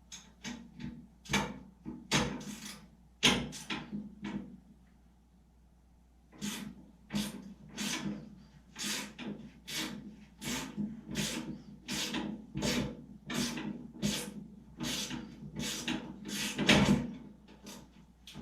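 Hand sawing at metal on a go-kart frame: steady back-and-forth rasping strokes, about one and a half a second, with a pause of about two seconds a little over four seconds in.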